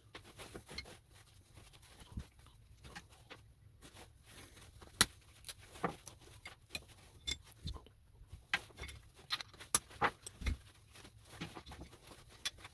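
Sped-up workbench sounds of scrapping brass and copper connectors: irregular sharp clicks and clinks of small metal parts and cutting tools, a few of them louder snaps.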